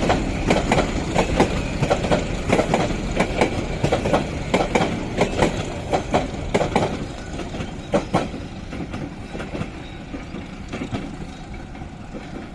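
Passenger coaches of a Bangladesh Railway local train rolling past, their wheels clattering over the rail joints in a quick, irregular run of clicks over a steady rumble. The clatter thins and fades from about eight seconds in as the last coaches move away.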